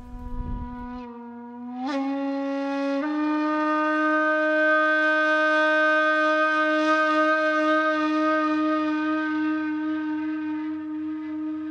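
A single wind instrument playing slow held notes: the pitch slides up about two seconds in and steps up again a second later, then one long note is held with a slight waver and fades gently near the end.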